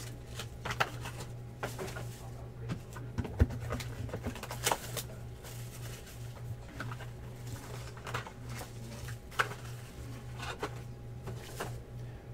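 A sealed, wrapped trading-card box being handled and turned over: scattered soft taps, crinkles and rustles, with a couple of sharper knocks about three and a half and four and a half seconds in, over a steady low hum.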